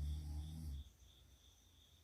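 A sleeping girl snoring: one low, rattling snore that lasts just under a second at the start. A faint high chirp repeats about three times a second throughout.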